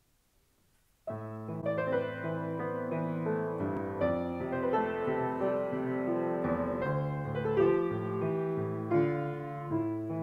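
Piano playing the slow introduction to a sacred solo song, starting suddenly about a second in after near silence. It moves through sustained chords and a melody line.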